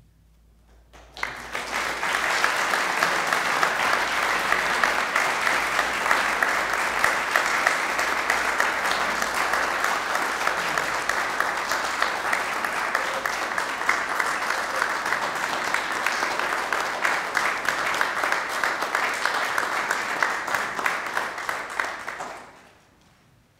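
Audience applauding, starting about a second in, holding steady, and dying away near the end.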